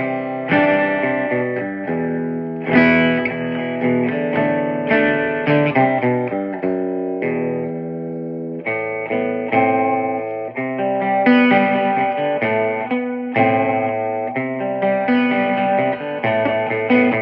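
Electric guitar played through a Peavey 6505+ tube combo amp fitted with an Eminence replacement speaker, at low volume: chords and single notes struck and left to ring, with a longer ringing chord about halfway through.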